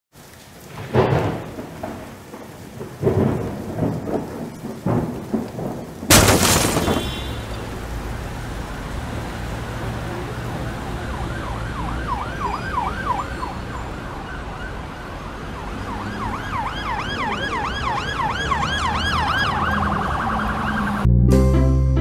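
Heavy crashes and rumbling like thunder, the loudest crash about six seconds in, giving way to a steady rumble. From about halfway, an emergency-vehicle siren yelps in fast rising-and-falling sweeps that grow louder, until plucked-string music comes in near the end.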